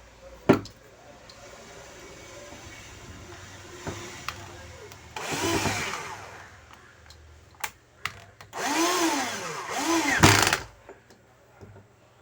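Electric screwdriver running in three short bursts, its motor speeding up and slowing down each time as it drives in the screws that clamp an IPM module to its heat sink. A sharp click comes about half a second in.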